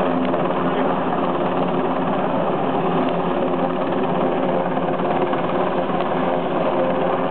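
Rescue helicopter running, a loud steady drone of engine and rotor.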